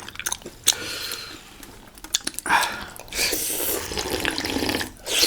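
Wet eating sounds from a bowl of jhol momo soup: a spoon clicking against the bowl several times and two short bursts of slurping, about two and a half seconds in and near the end.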